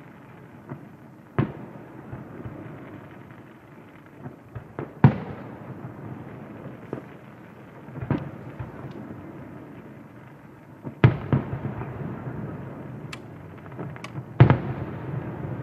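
Aerial firework shells bursting: five loud bangs about three seconds apart, each followed by a rolling, echoing rumble, with a few smaller pops and sharp cracks between them.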